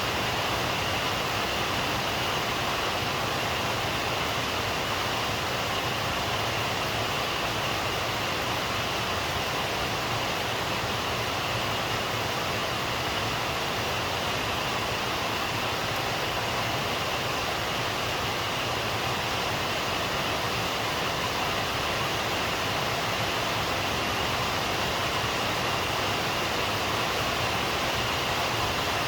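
Steady, heavy rain falling, an even hiss that stays the same throughout.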